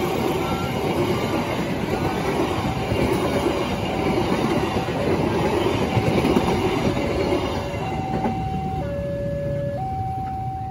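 Tawangjaya Premium passenger train passing at speed, its carriages' wheels rumbling and clattering over the rails, then fading about eight seconds in as the last car clears. Through it the level crossing's electronic warning signal repeats a steady tone, changing to two alternating tones once the train has gone.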